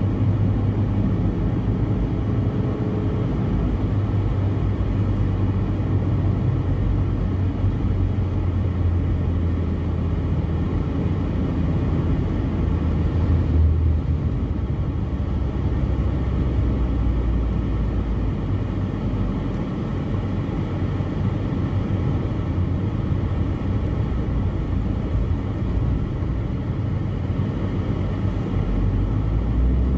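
Steady engine and road noise inside a moving car's cabin, dominated by a low hum. An oncoming bus passes close by about halfway through, with a brief swell in the noise.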